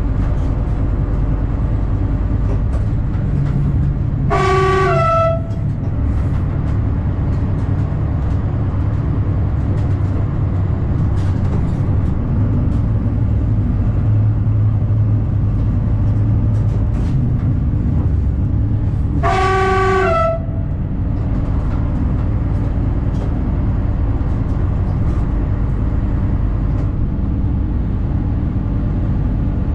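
Diesel railcar running along the track with a steady rumble, with light clicks and rattles. Its horn sounds twice, about fifteen seconds apart, each blast lasting about a second.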